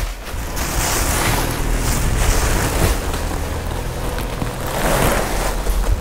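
A woven plastic sack and plastic wrapping rustle and crinkle as they are pulled and handled around a packed bale of clothing.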